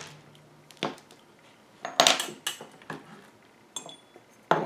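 Several sharp clinks and knocks of small metal tools and hardware on a workbench, clustered around two seconds in, a few with a brief metallic ring.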